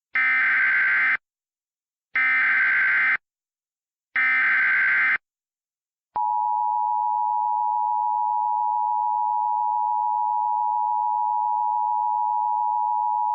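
Emergency Alert System header: three one-second bursts of warbling SAME digital data about a second apart, then a steady single-pitch EAS attention tone that begins about six seconds in and holds. Together they signal the start of a new emergency alert.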